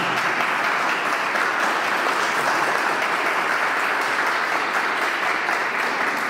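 Audience applauding, a steady patter of many hands that starts to die down near the end.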